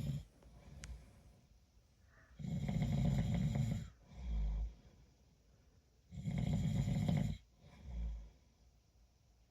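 Snoring in a slow, regular rhythm: two long snores a little under four seconds apart, each followed by a shorter, deeper puff of breath.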